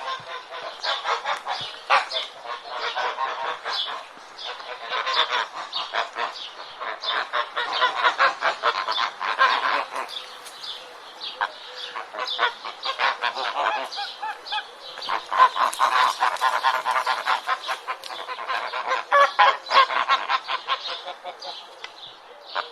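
A flock of geese honking, many short calls overlapping in quick succession, with brief lulls about four seconds in and again around fourteen seconds.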